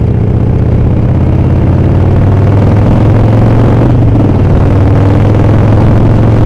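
Harley-Davidson Sportster Iron 883's air-cooled V-twin running at a steady pace while being ridden, its deep engine note holding level throughout.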